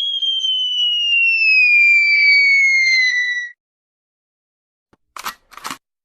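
A long falling whistle sound effect, one pure tone sliding steadily down in pitch, as in a cartoon drop, that cuts off about three and a half seconds in. After a pause come two short noisy bursts near the end.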